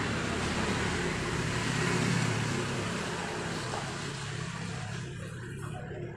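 Dry sand and charcoal ash sifting through a wire-mesh strainer shaken over a plastic tub: a steady dense hiss of falling grains, fading near the end as the strainer empties.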